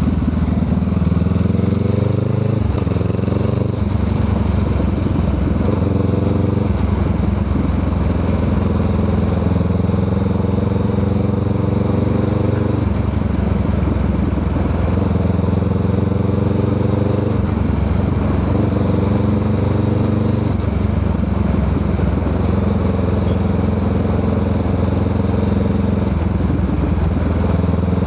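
Honda Rebel 500's parallel-twin engine through a Musarri aftermarket muffler, running under way: the exhaust note rises in pitch, drops back at each shift, and climbs again, several times over, with a stretch of steady cruising in between.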